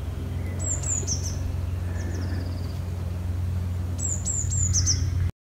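Small songbird calling: groups of three or four short, high notes, each sliding downward, about three seconds apart, with a short falling trill between them. A steady low hum runs underneath, and everything cuts off abruptly near the end.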